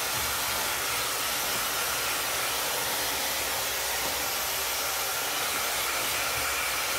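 DAILYTOP 5-in-1 blow dryer brush running steadily, a constant rush of air with a faint high whine from its motor, blowing air that is not hot.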